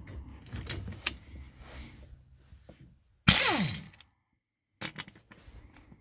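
An air impact wrench gives one short burst about three seconds in on a brake caliper bolt. It starts with a hiss and then spins down in a steeply falling pitch. Around it are small clicks and clunks of the tool and metal parts.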